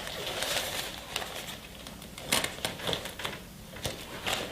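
Fabric rustling with scattered light clicks and crackles as the inner diffuser's Velcro tabs are pressed onto the tabs inside a speedlite softbox.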